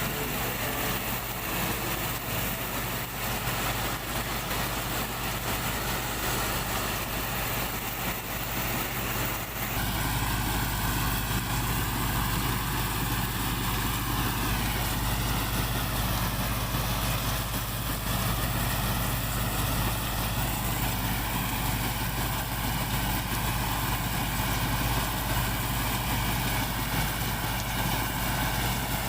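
Heavy farm machinery's diesel engine running steadily. About ten seconds in the sound changes abruptly, and around halfway its pitch dips and rises again.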